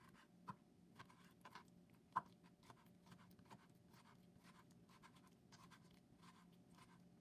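Kitchen knife chopping soft roasted aubergine on a plastic cutting board: faint, quick taps of the blade against the board, several a second, with one sharper knock about two seconds in.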